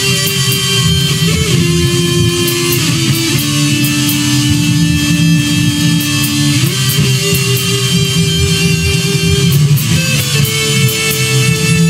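Neoclassical heavy metal instrumental: electric guitar over bass and drums with regular cymbal hits. A melody of long held notes changes pitch every second or two.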